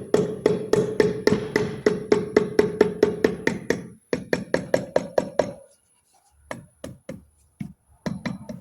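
Butterfly-throttle air impact wrench running on the turbocharger's housing bolts, hammering in a quick even rhythm of about four to five strikes a second over the air motor's steady hum. It stops about four seconds in, makes a shorter second run, then a few single strikes.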